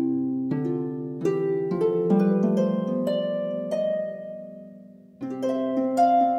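Background instrumental music: a melody of plucked notes, each ringing out and fading, with a louder new phrase starting about five seconds in.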